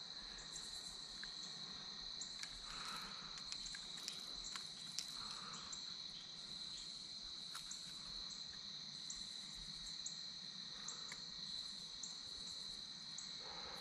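Steady, high-pitched chorus of insects, with a few faint clicks and soft handling sounds as pliers work a hook out of a fish's mouth.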